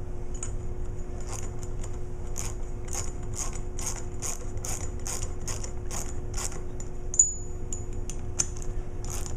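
Ratchet wrench clicking about twice a second as the bolts on a raw water pump's cover are run down, the clicks growing sparser near the end with one louder click.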